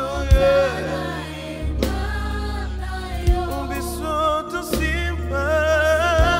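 Gospel worship song performed live: a male lead singer holding sung notes with vibrato, with backing singers, electric bass guitar and keyboard, and a short hit about every second and a half.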